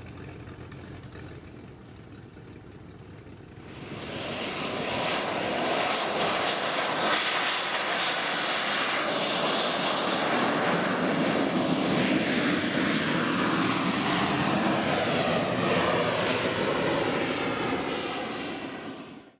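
Jet engines of a small business jet on the runway. The sound swells about four seconds in to a loud steady rush with a thin high whine that slowly falls in pitch, then fades near the end.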